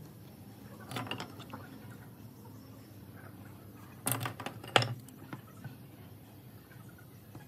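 A few knocks of metal squares being handled on a wooden board: a light one about a second in and two sharper knocks about four and five seconds in as a steel square is set down on the pine board.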